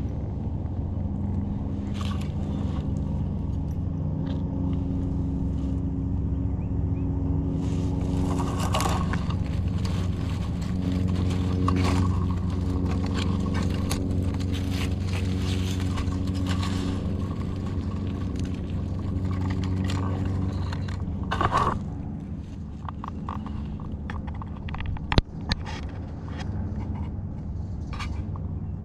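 Hands rustling and scraping through dry leaf litter and twigs while picking a mushroom, with short crackles and a sharp snap a little before the end. A steady low mechanical hum runs underneath.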